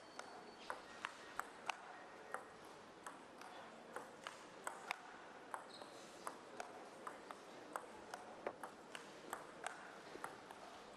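Table tennis ball clicking off the table and the players' rubber bats during play, in sharp separate ticks about two or three a second, echoing faintly in a large hall.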